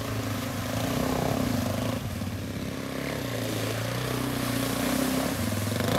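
Suzuki DR-Z400 dirt bike's single-cylinder four-stroke engine running steadily as the bike rides through a shallow river, with water splashing and spraying off the wheels.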